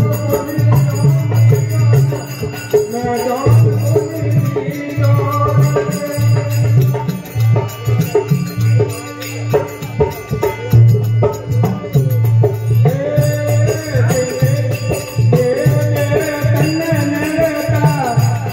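Devotional folk bhajan music without words: a harmonium holds the melody over a steady, regular drum beat with small hand percussion striking along.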